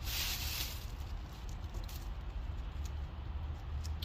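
Masking tape being peeled off a car's window trim after spray painting: a short ripping hiss in the first second, then faint rustling, over a steady low rumble.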